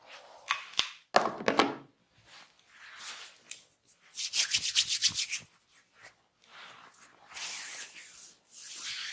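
Hands rubbing and scratching during a barber's massage. A sharp click and a louder thump come in the first two seconds, a fast run of about ten strokes a second follows in the middle, and longer rubbing strokes come near the end.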